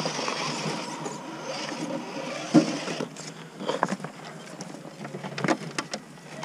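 Radio-controlled rock crawler truck driving over loose creek-bed stones, with a faint steady whine for the first two seconds or so. A few sharp knocks follow, about two and a half, four and five and a half seconds in.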